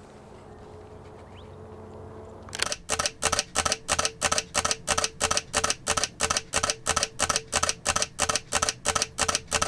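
Camera shutter clicking over and over in a rapid, even burst, about three clicks a second, like a motor drive firing continuously. It starts about two and a half seconds in over a faint steady hum and cuts off abruptly.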